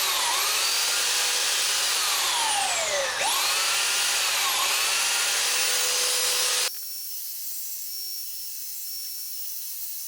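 Electric power sander running steadily against wood, with its pitch wavering as it is worked. About two-thirds of the way through it cuts off abruptly, and a quieter, higher steady machine whir follows.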